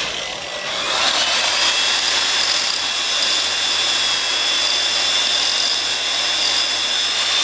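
Power grinder grinding down what is left of a skate-stopper knob on a skate spot. It runs as a steady high whine over hiss, picking up about a second in.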